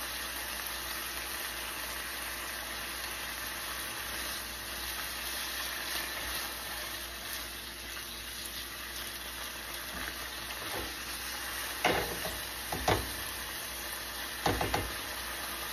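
Beef slices sizzling in a frying pan, a steady hiss. A silicone spatula stirs them, knocking and scraping against the pan a few times about three-quarters of the way through and again near the end.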